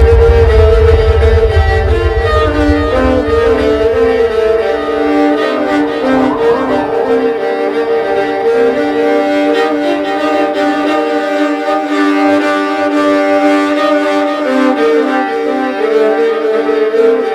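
Violin music: bowed notes held and stepping in a slow repeating pattern, over a deep low rumble that fades out about five seconds in.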